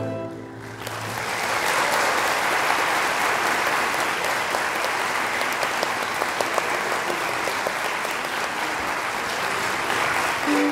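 The last held chord of a symphony orchestra fades out in the first second, and the audience breaks into steady applause that keeps going.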